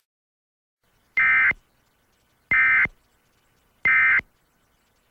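Three short bursts of Emergency Alert System SAME digital data tones, each under half a second and about 1.3 s apart: the end-of-message code that closes an EAS alert.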